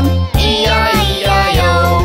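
Upbeat children's song with a steady bass beat and a bright melody line.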